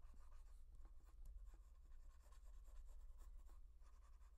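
Faint scratching of a stylus making short, quick strokes on a graphics tablet, over a low steady hum.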